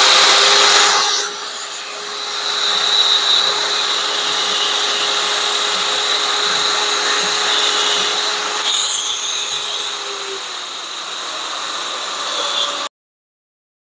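WEN HA5932 handheld spindle sander, bench-mounted, switched on and running. Its sanding spindle spins free at first, then sands a wooden block pressed against it to bevel the edge. The level drops about a second in, rises briefly around nine seconds in, and the sound cuts off suddenly near the end.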